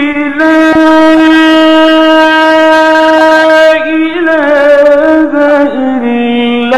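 Male qari reciting the Quran in a melodic style, holding one long note for about three and a half seconds, then moving down in short steps.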